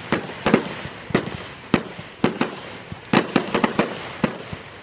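Fireworks going off: about a dozen sharp bangs and pops at irregular intervals, several a second at times, each trailing off briefly.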